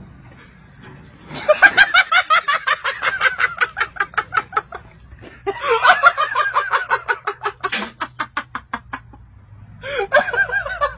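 A person laughing uncontrollably in rapid, high-pitched ha-ha pulses, in three long fits that start about a second in.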